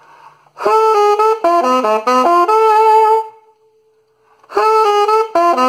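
Alto saxophone playing a short phrase of quick notes that ends on a held note, then, after a pause of about a second, starting the same phrase again.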